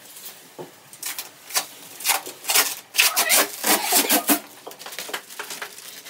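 Plastic protective film and paper packaging being peeled off a new microwave oven's door and crumpled, giving a run of loud crackling rustles that is heaviest from about one to four and a half seconds in.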